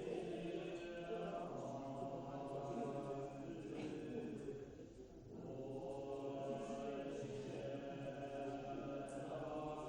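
Voices chanting in long held tones, with a short break about five seconds in before the chant resumes.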